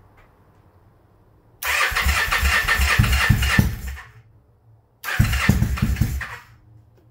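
Kawasaki Vulcan 750's freshly rebuilt liquid-cooled V-twin being started for the first time after a full rebuild: two tries on the electric starter, one of about two and a half seconds and a shorter one of about a second and a half, with uneven thumping. Each stops without the engine settling into a steady idle.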